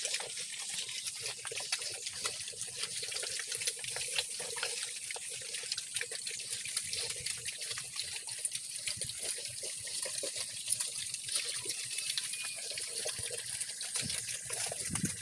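Group of young piglets feeding at a concrete trough: a dense, continuous run of small chewing and smacking clicks.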